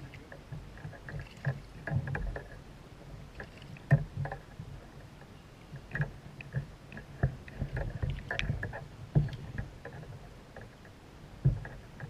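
Irregular knocks and clicks on a fishing kayak, with a handful of sharper knocks standing out a second or two apart.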